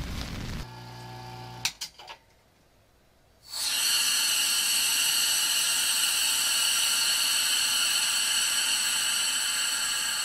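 Rain at first, then a few clicks and a short quiet before an electric vacuum pump starts up about three and a half seconds in and runs steadily with a high whine, pumping down a steel vacuum chamber.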